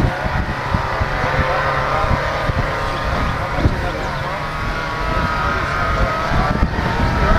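Wind rumbling on the microphone over a background murmur of people's voices.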